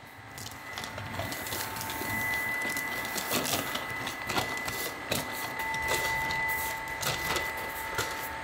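Flour being poured from a paper sack into a stainless-steel noodle mixer, the sack crinkling and rustling with irregular scrapes. A steady high-pitched machine whine runs underneath.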